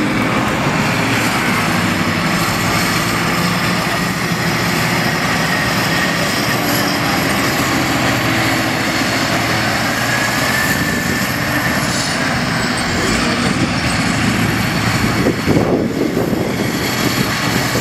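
Heavy diesel engine of large quarry earthmoving machinery running steadily, with a louder, rougher stretch near the end.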